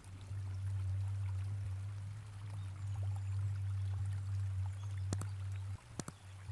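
A steady low hum over a faint hiss, with two sharp clicks about five and six seconds in: mouse-click sound effects from an animated subscribe button.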